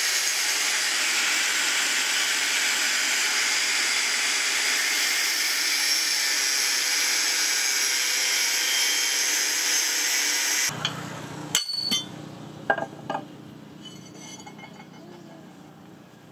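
Angle grinder with a cutting disc cutting through leaf-spring steel, a steady loud grinding hiss. About eleven seconds in it stops, and a few short metallic clinks follow.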